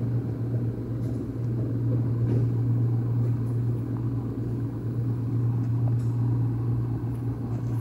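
A steady low hum with a low rumbling noise under it, and a few faint clicks.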